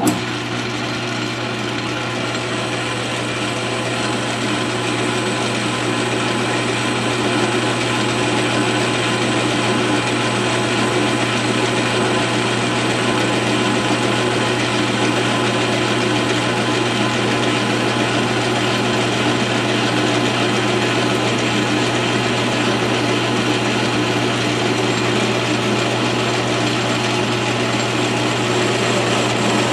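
A South Bend 13-inch metal lathe starts up right at the beginning and then runs steadily, with a strong low hum and a steady whine from the motor and gearing while the tool takes a turning cut on the shaft.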